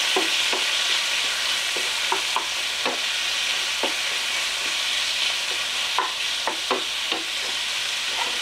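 Chicken and mixed vegetables frying in pans with a steady sizzle, while a wooden spatula stirs them with scattered short scrapes against the pan.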